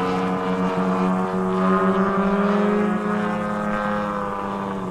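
Propeller engines of two radio-controlled aerobatic model airplanes running as they fly together, a steady engine note that rises a little in pitch and grows louder toward the middle, then eases off near the end.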